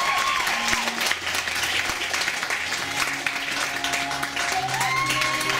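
Audience applauding steadily over background music with a singing voice.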